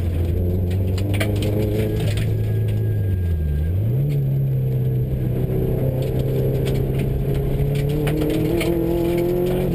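Subaru rally car's engine heard from inside the cabin, running at a steady pitch, with a brief dip in revs about three and a half seconds in before it settles at a higher pitch that climbs slightly near the end. Loud gravel road noise and scattered rattles and knocks run under it.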